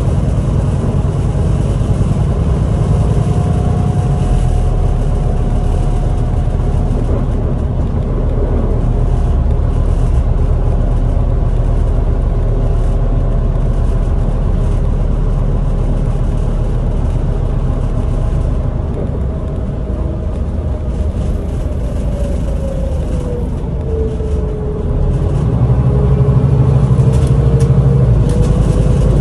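Scania Citywide LFA articulated city bus heard from inside the passenger cabin while driving: a steady engine drone and road noise with a thin whine. The whine drops in pitch as the bus eases off a little past twenty seconds in, then rises again as it accelerates near the end, the drone growing louder.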